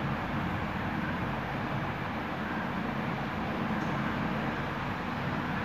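Water being poured into a pan of tamarind broth and vegetables, a steady splashing pour.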